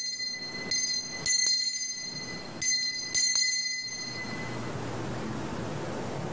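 Altar bell rung in several shakes at the elevation of the host, the sign that the bread has just been consecrated; the ringing fades out about four seconds in, leaving a steady hiss.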